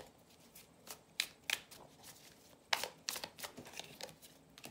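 A deck of tarot cards being shuffled by hand: the cards slide and slap against each other in irregular snaps, with a few sharper ones after about one second and again near three seconds in.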